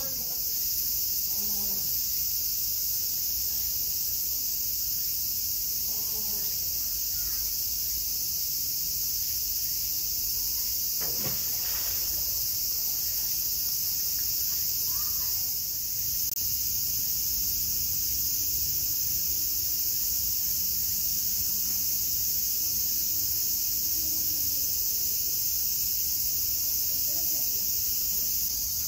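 Insects droning steadily in a high, even hiss.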